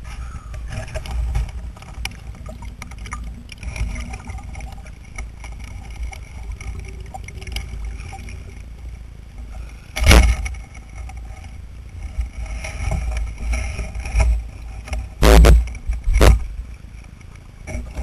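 Water sloshing against an underwater camera housing at the surface, with an uneven low rumble. Sharp loud knocks on the housing about ten seconds in and twice more near the end.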